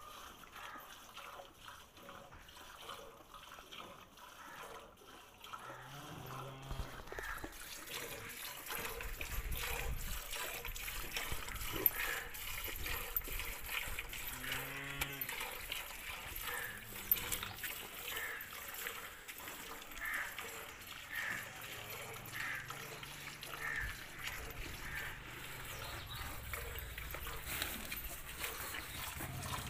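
Milk squirting from a cow's teats into a stainless-steel bucket during hand milking, in regular strokes a little over one a second. Two low drawn-out calls are heard, one about a quarter of the way in and one about halfway.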